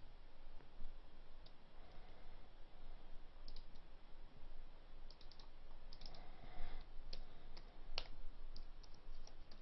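Scattered single clicks from a computer mouse and keyboard, with a few keystrokes near the end. They are faint, over a steady low hum.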